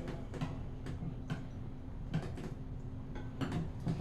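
Scattered light clicks and taps, a few a little sharper than the rest, over a steady low hum.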